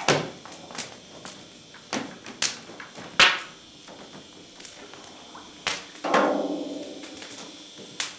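Scattered sharp knocks of a plastic scoop against a copper cheese vat. The knock about six seconds in rings on for a second or two.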